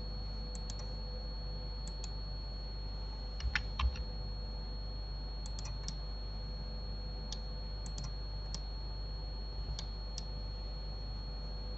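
Computer keyboard keys and mouse buttons clicking, in scattered single and paired clicks, with two louder knocks about three and a half seconds in. Underneath are a steady low electrical hum and a faint high whine.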